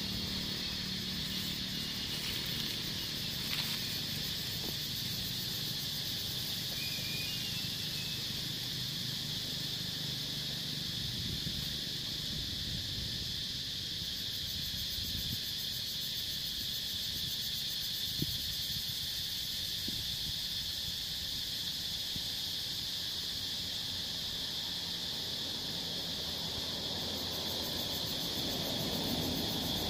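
Steady shrill chorus of forest insects, a continuous high-pitched drone that holds unchanged throughout.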